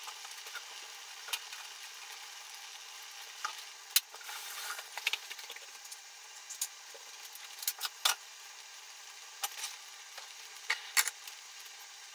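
Olive oil heating in a frying pan on a gas hob: a steady hiss with scattered crackles, and a few sharper clicks and knocks.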